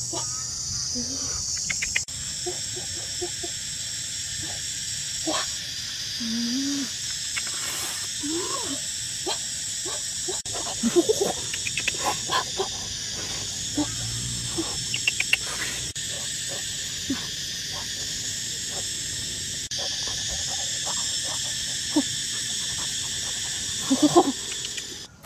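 Steady high-pitched chorus of insects, with scattered short clicks and a hen's brief low clucks now and then.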